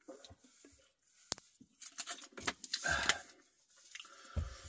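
A person drinking from a plastic water bottle, with small clicks and rustles of the bottle and mouth, then the bottle set down on the counter with a low thud near the end.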